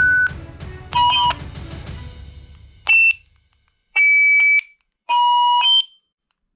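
Handheld TR-446 walkie-talkies giving a series of short electronic beeps and tone chirps. There are five, roughly one a second, and some step between two pitches.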